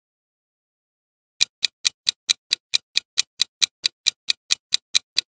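Quiz countdown-timer sound effect: even, sharp clock ticks at about four to five a second. They start about a second and a half in, after a silent stretch.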